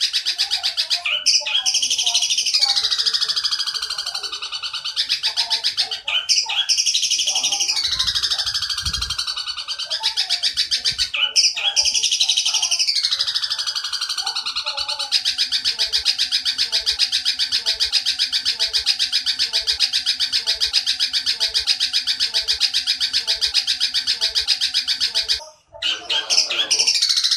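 Eurasian tree sparrow's long, rapid, high buzzy chatter (the 'nyerecet' chatter). It comes in three phrases that sweep down in pitch, then one long unbroken chatter from about halfway through that cuts out briefly near the end, over a lower, slower repeating note.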